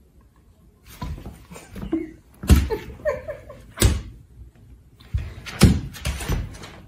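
A cat and a dog play-fighting: several sharp knocks and thumps, with a short vocal sound from one of the animals about three seconds in.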